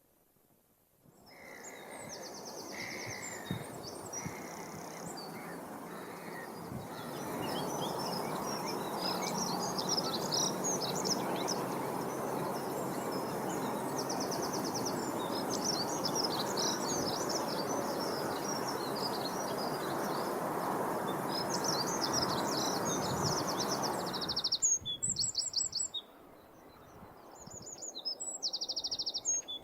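Small garden songbirds singing and chirping, with high, rapid trills, over a steady background hiss. The hiss cuts off abruptly near the end, leaving clearer chirps.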